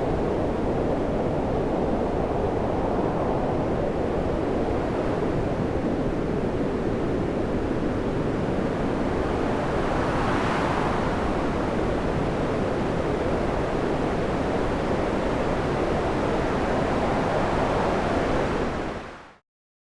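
Stormy sea: rough waves and surf in a continuous churning wash with wind, one wave swelling brighter about halfway through. It fades out quickly near the end.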